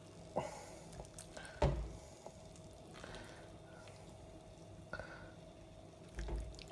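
Light knocks and clatters of a wooden spoon and a ceramic bowl being handled as rice jambalaya is served. The sharpest knock comes a little under two seconds in, with a few softer ticks and a low thump near the end, all over a faint steady hum.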